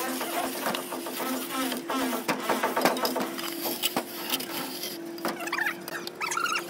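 Long straightedge scraping and knocking against fresh sand-cement render on a round column, over a steady mechanical hum.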